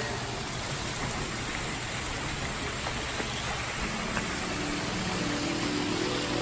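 Steady rushing of a small waterfall running down artificial rockwork. Music with sustained tones comes in faintly about four seconds in.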